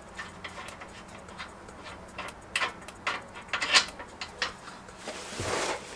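Scattered light clicks and taps of hand tools on metal suspension parts, with a few sharper knocks in the middle and a short hiss near the end.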